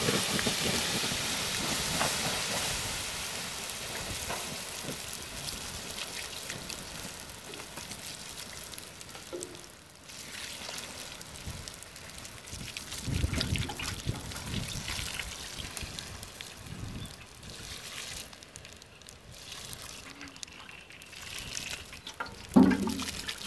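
Water poured from a watering can onto hot tobacco-stalk charcoal, hissing and sizzling as it quenches the embers. The hiss is loudest at the start and slowly dies down, with a sharp knock near the end.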